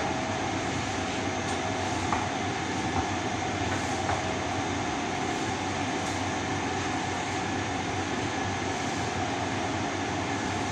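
Steady machine hum in a workshop with a faint constant whine, and a few light knocks of metal being handled.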